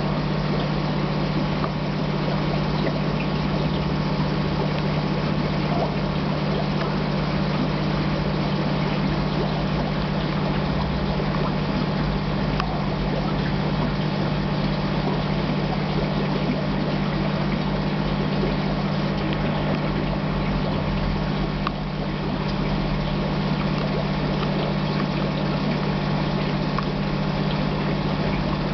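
Aquarium pump humming steadily, with a wash of moving water over it.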